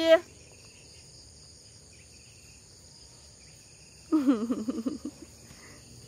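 Steady high-pitched chirring of insects across a rural field. About four seconds in, a person's voice calls out loudly for about a second.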